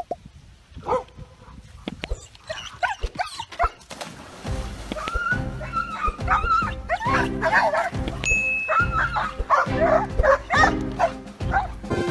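Dogs barking and yelping, with background music and a steady beat coming in about four seconds in.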